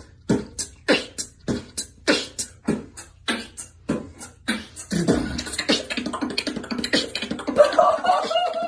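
Mouth beatboxing: a steady beat of sharp vocal kick and snare hits, about three a second, that turns into a busier, denser pattern about halfway through, with a wavering hummed tone near the end.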